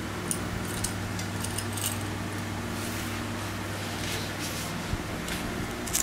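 Scattered light metallic clinks as a pocket watch and its chain are handled, over a steady low hum.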